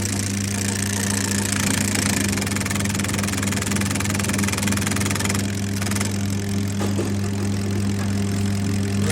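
Machinery running at a steady constant speed: a continuous low hum with a mechanical knock and rattle, with no change in speed.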